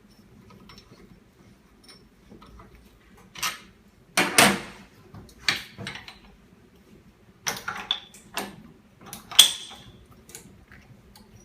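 Clicks and metallic clunks from the door and latch of a de-bubble (autoclave) chamber being released and opened once its pressure is back to zero, in a few separate knocks with a sharp, briefly ringing clack near the end.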